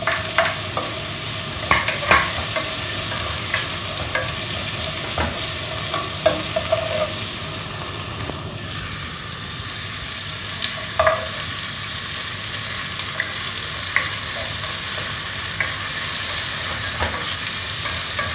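Sliced tomatoes, onion, garlic and ginger sizzling in oil in a metal pot. A plastic spoon stirs them and knocks against the pot now and then. The sizzle grows louder about eight seconds in.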